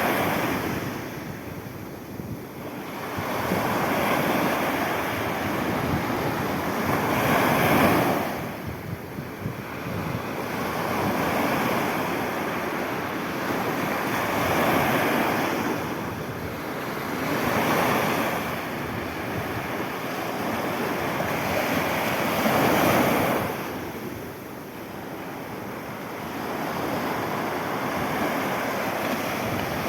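Sea waves breaking and washing in, the surf swelling and fading every few seconds.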